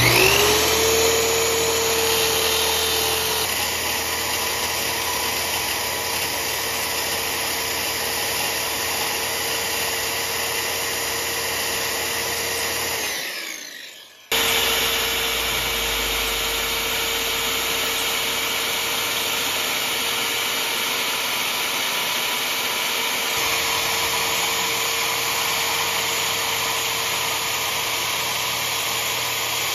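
Corded circular saw spinning up and cutting through a wooden sheet with a steady high whine. About 13 seconds in it winds down and stops for a moment, then runs and cuts again.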